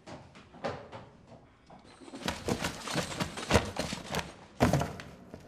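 Hands rummaging through a box of banknotes, papers and small cases: rustling paper and light knocks of objects being moved and dropped. It starts faint and gets busy about two seconds in, with a couple of louder knocks.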